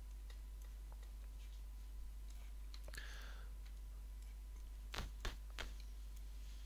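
Faint computer mouse clicks, a few scattered ones and a quick group of three about five seconds in, over a steady low electrical hum.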